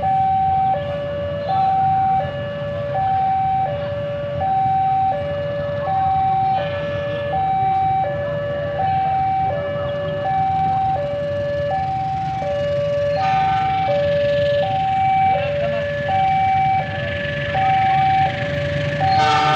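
Railway level-crossing warning alarm sounding a steady two-tone hi-lo pattern, each tone held about three-quarters of a second, with a low steady rumble underneath.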